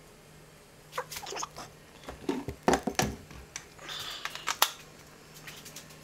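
Knocks, clicks and clatter of tools being handled on a workbench, over a faint steady hum.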